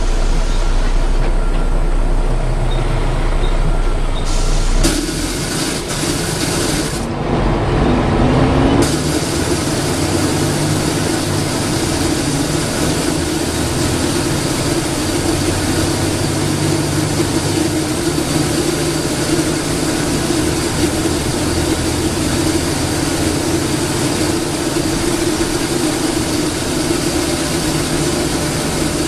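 On-board sound of a Volvo B7TL double-decker bus with its 7-litre six-cylinder diesel: a low steady drone for the first few seconds, then the engine note rising as the bus pulls away, settling into steady running with a loud hiss from about nine seconds in.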